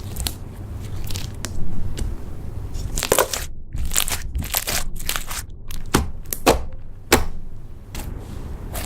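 Slime being squished and pressed by hand, giving irregular crackles and sharp pops, with a few louder pops about six to seven seconds in.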